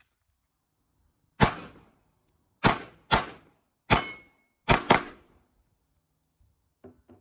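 Six gunshots, each followed by a short ringing decay. The last two come in quick succession, like a double tap. A couple of faint clicks come near the end.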